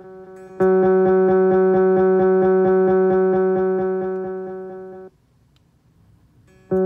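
A single sustained guitar note played through a Donner Ultimate Delay pedal, its echoes pulsing about seven times a second. It starts sharply about half a second in, fades, and cuts off abruptly about five seconds in. A fresh note starts near the end.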